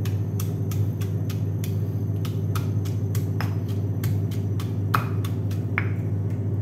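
Granite pestle pounding spice ingredients in a stone mortar, about three sharp knocks a second, stopping shortly before the end. A steady low hum runs underneath.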